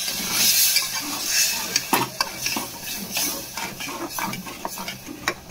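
A metal spatula stirring and scraping a wet masala in an aluminium pressure cooker, with repeated clinks against the pot, over a light sizzle from the pot on the flame.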